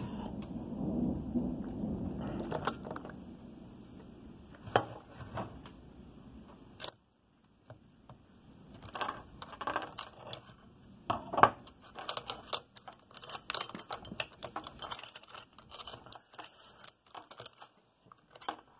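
Loose steel chainsaw chain clinking and rattling in the hand, a run of irregular metallic clicks and jingles. A low rubbing handling noise comes first, and then a short quiet pause.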